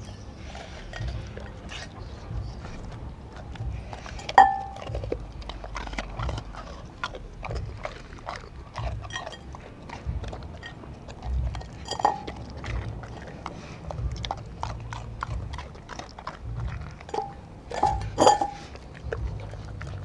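A Doberman licking and chewing food out of a glass bowl, making many small clicks. Now and then it knocks the glass into a short ringing clink: about four seconds in, again midway, and twice close together near the end, the loudest of these early and near the end.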